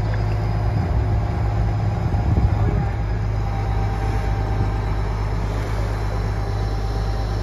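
The barge-mounted crane's engine runs steadily with a deep hum while the crane holds a cabin cruiser of over 20,000 pounds in its slings. The hum swells briefly about two seconds in.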